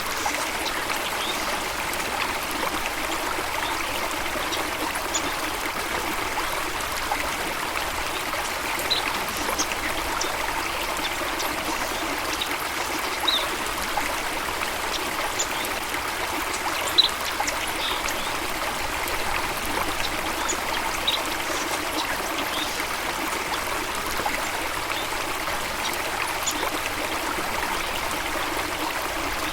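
A stream of water flowing and trickling steadily, with occasional short high blips over it.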